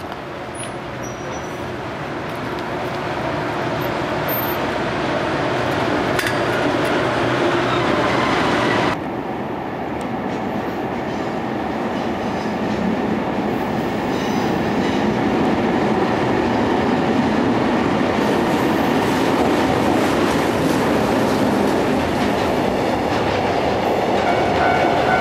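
Freight trains hauled by electric locomotives passing at close range, their wheels running over the rails. The sound changes abruptly about nine seconds in, when a second freight train takes over and grows steadily louder as its wagons roll past.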